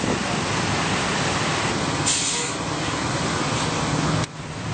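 Large bus passing close by, its engine and tyres making a steady rumble and road noise, with a short hiss of air about two seconds in. The sound drops off suddenly near the end.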